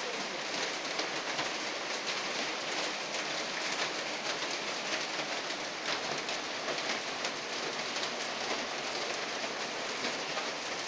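Heavy rain pouring steadily, a dense patter of drops striking hard ground and roofs.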